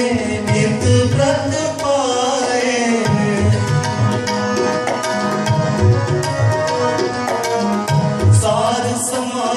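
Shabad kirtan: two harmoniums hold steady chords while a tabla keeps up a quick pattern of strokes, in a mostly instrumental passage. A singing voice comes back in near the end.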